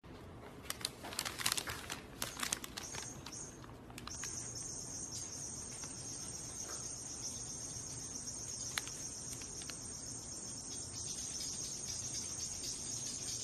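Paper bag crinkling and crackling in a few quick bursts over the first few seconds, then a steady high-pitched chirring that holds on to the end.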